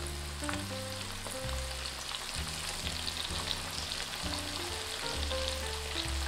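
Karaage (cornstarch-and-flour-coated chicken thigh pieces) deep-frying in oil, a dense steady crackling sizzle. This is the first, lower-temperature fry on medium-low heat, at about 160–170 °C. Soft background music runs underneath.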